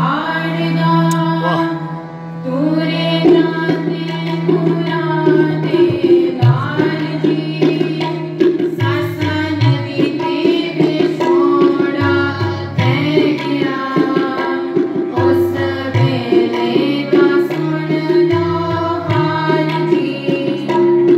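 Sikh kirtan: girls' voices singing a melody over the held chords of a Yamuna hand-pumped harmonium, with a tabla keeping a steady beat.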